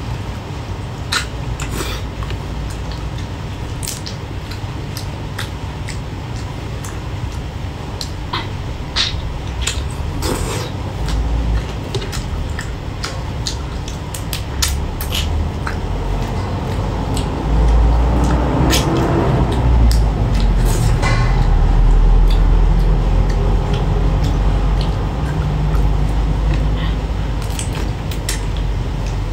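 Close-up eating sounds of whole prawns in spicy sauce: sucking and chewing at the shells, with many scattered sharp clicks and crackles, over a steady low rumble.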